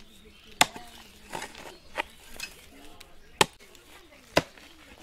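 Digging hoe chopping into hard, dry earth: four sharp blows, one every second or so, with lighter knocks between as soil clods break loose.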